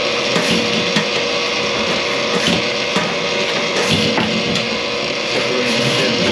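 A machine running steadily with a constant hum, with irregular knocks and rattles over it.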